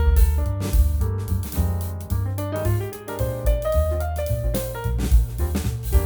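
Background music: piano-led instrumental with a bass line and a steady drum beat.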